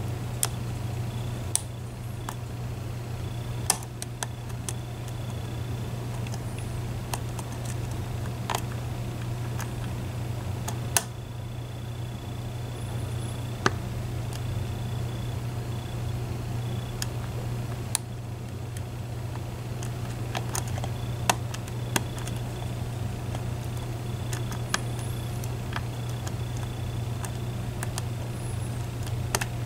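Lock pick and tension wrench working the pins of a Medeco Biaxial lock cylinder: scattered, irregular metallic clicks and ticks, a few seconds apart, as the pins are lifted and rotated toward the shear line and sidebar. A steady low hum runs underneath.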